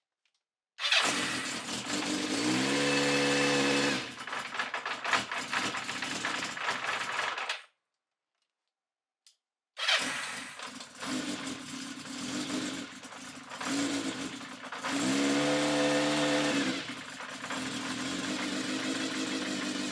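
Kawasaki Zephyr 750's air-cooled inline-four running in two separate recordings with a silent break between them. In each, the engine is blipped once: the pitch rises, holds for a second or so, then falls back to idle.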